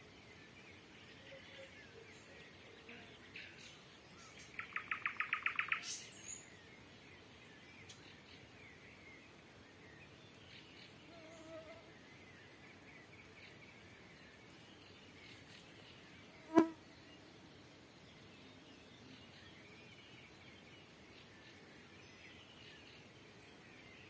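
Nightingale singing at a distance: a quick run of about a dozen evenly spaced notes a few seconds in, ending in a high whistle, with faint song phrases and insect buzzing behind. About two-thirds of the way through, a single short, loud pitched blip stands out.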